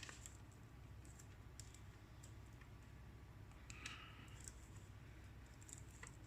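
Near silence with a few faint, scattered clicks and taps of a plastic router being handled, and a brief soft rustle about four seconds in.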